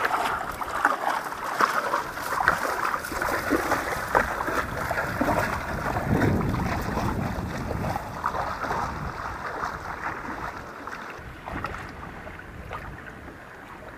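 Water sloshing and splashing close by around a small wooden outrigger canoe in shallow water, with some wind on the microphone. It grows quieter over the last few seconds.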